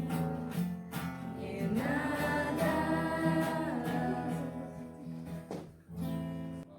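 Closing bars of a Christian worship song: acoustic guitar with held sung notes, a last chord sounding near the end.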